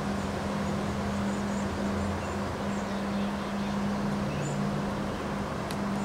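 Wind gusting through leafy trees, a steady rush of rustling foliage, over a steady low hum and a few faint high chirps.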